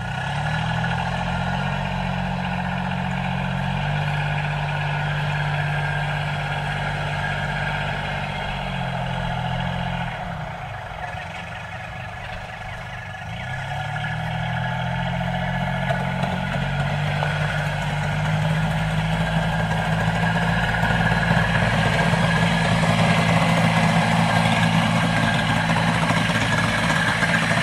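Engine-like hum of a miniature tractor and toy excavator running, with a low pitch that shifts in steps, dips and softens about ten to thirteen seconds in, then rises and grows louder toward the end.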